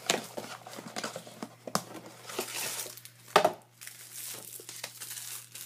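Cardboard box and plastic packaging rustling and crinkling as packets are pulled out of a hair dye kit, with scattered sharp clicks and knocks, the loudest about three and a half seconds in.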